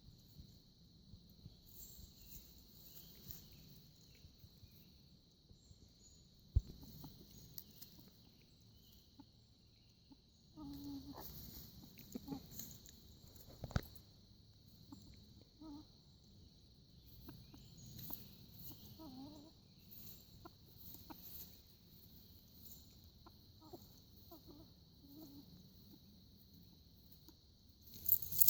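Chickens clucking softly now and then, with a denser run of clucks about ten seconds in, over a faint steady high background hiss. Two sharp taps sound, about a third of the way in and about halfway through.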